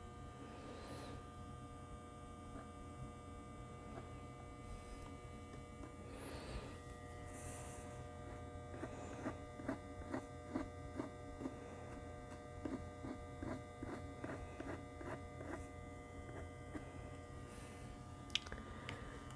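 Steady electrical mains hum with several faint constant tones. Around the middle comes a run of soft light ticks lasting several seconds, and there is one sharper click near the end.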